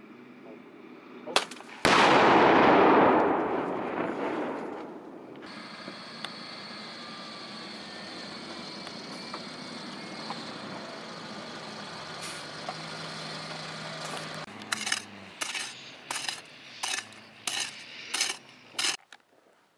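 A demolition charge detonating about two seconds in: a sudden loud boom whose rumble dies away over about three seconds. Then the steady running of Joint Light Tactical Vehicles' diesel engines as they drive past. Near the end comes a quick run of about eight sharp knocks.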